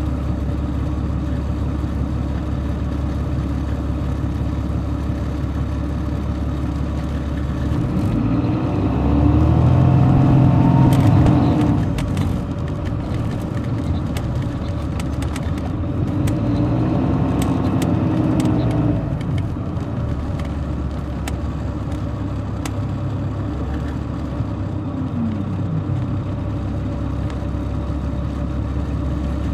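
Caterpillar C13 diesel of an MCI D4500CL coach, heard from inside the cabin, running with a steady low drone. About eight seconds in the engine speed climbs and it grows louder, then drops back near twelve seconds. It climbs again briefly around sixteen to nineteen seconds, with light rattles during the pulls.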